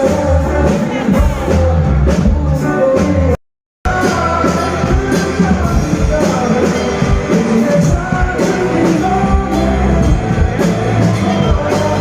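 Loud live stage music with singing over a heavy bass and drum beat. The sound cuts out completely for about half a second a little over three seconds in.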